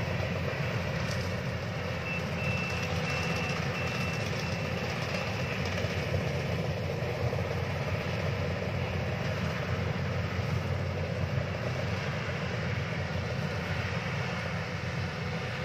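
Yanmar combine harvester's diesel engine and threshing gear running steadily under load while cutting rice. A few seconds in there is a short run of evenly spaced high beeps.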